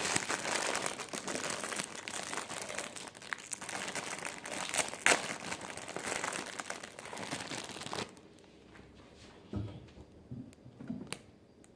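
A block of dried instant ramen noodles crushed inside its plastic packet: crinkling of the wrapper with the sharp crackle and snapping of the noodles, stopping about eight seconds in. A few soft low thumps follow.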